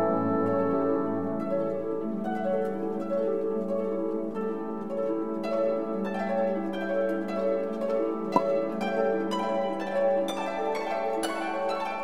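Background music of plucked harp and pizzicato strings playing a steady run of notes, with one brief sharp click about eight seconds in.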